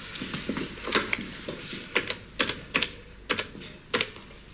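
Irregular short plastic clicks, often in quick pairs, of telephone buttons being pressed as a number is dialled.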